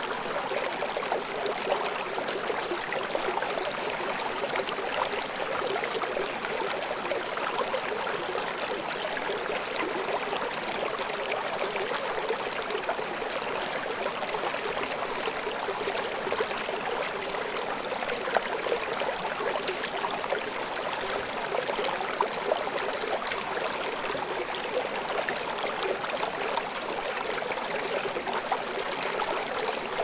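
A small stream running over stones: a steady, even rush and babble of water, with little low rumble.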